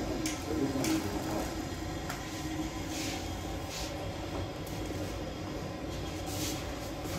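Working sangak bakery: a steady low rumble with scattered short clicks and light clatters as a large baked sangak flatbread is taken from the oven and handled.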